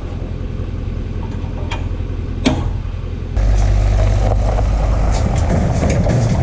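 A motor vehicle's engine running steadily, with one sharp click about two and a half seconds in. Just past the halfway point the rumble suddenly jumps louder and holds steady.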